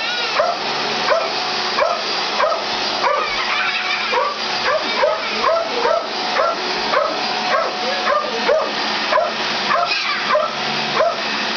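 Dog barking and yipping at a running upright vacuum cleaner, a rapid string of short rising yips, two or three a second. The vacuum's motor hums steadily underneath.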